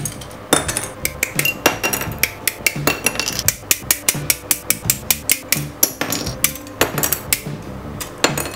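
Hobby side cutters (nippers) snipping plastic model-kit parts off the runner: a quick, irregular run of sharp clicks, several a second.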